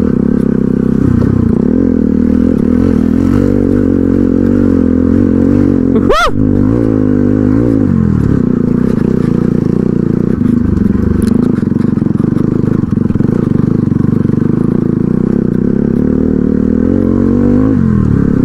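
Crossfire XZ250RR motorcycle engine running steadily while it is ridden over a rough dirt track. The revs rise and fall slightly about seven seconds in and again near the end, and there is a brief sharp knock about six seconds in.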